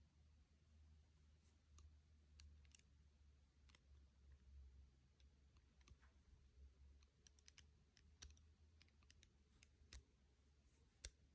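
Faint, irregular small clicks and taps from the bracelet and its packaging being handled, with a few sharper clicks in the second half, over a low steady hum.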